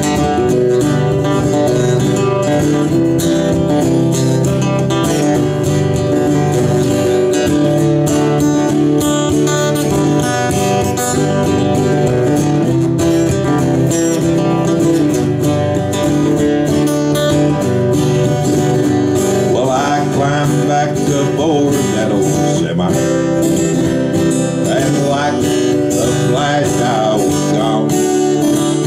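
Instrumental break in a country song played on two acoustic guitars, one strumming the rhythm while the other picks a lead melody.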